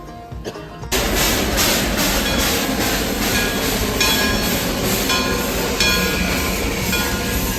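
Steam train coming in loud from about a second in, with a steady beat about twice a second.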